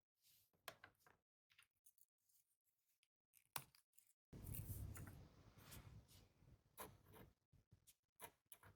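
Faint desk handling sounds: scattered small clicks and taps, then a louder rustling rub from about four seconds in that lasts about three seconds.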